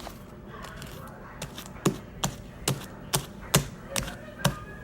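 A run of sharp, evenly spaced taps, about two a second, starting about two seconds in, from slime ingredients being mixed by hand.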